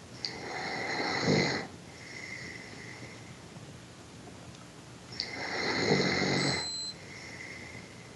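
A sleeping person snoring: two loud snores on the in-breath, each about a second and a half long and about five seconds apart. A faint high whistle sounds between them.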